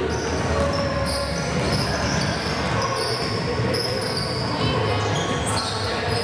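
Indoor ball game: a ball bouncing on the hall floor over steady hall noise, with several short high-pitched squeaks coming and going.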